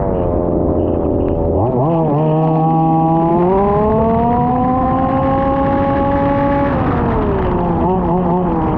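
Small two-stroke petrol engine of a 1/5-scale RC Formula 1 car, its pitch falling as it slows, then revving up sharply about two seconds in and climbing steadily under acceleration until it drops off near seven seconds as the throttle is released.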